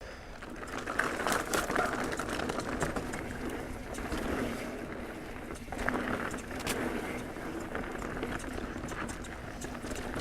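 Mountain bike (Pivot Trail 429) rolling along a dirt trail: steady tyre noise with frequent irregular clicks and rattles from the bike over rough ground.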